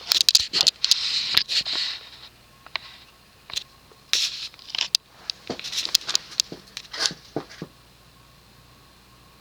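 Irregular clicks and short scraping noises in clusters, from hands working a ceiling fan's reverse switch and speed control, with a faint steady hum underneath.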